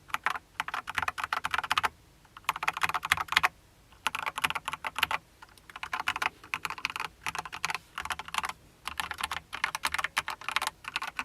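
darkFlash GD100 mechanical keyboard with yellow switches being typed on fast. The keystrokes come in about six quick runs of one to two seconds each, with short pauses between them.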